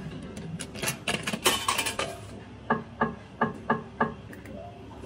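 Video slot machine: a metallic clattering, as a coin drops in and is credited. It is followed by five short electronic beeps in even succession, one as each of the five reels stops.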